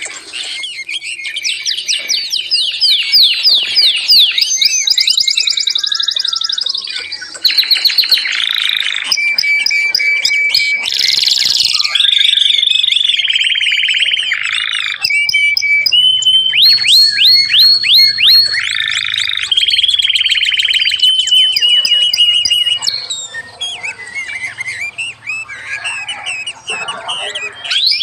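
Several caged songbirds singing at once: fast trills, runs of quick sweeping whistled notes and long high held notes, loud and almost unbroken, thinning out a few seconds before the end.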